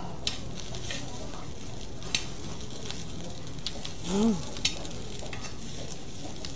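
Beef intestines and fried rice sizzling on a hot iron pan as they are stirred and scooped, with several sharp clicks of a metal spoon and chopsticks against the pan. A short pitched hum-like sound comes about four seconds in.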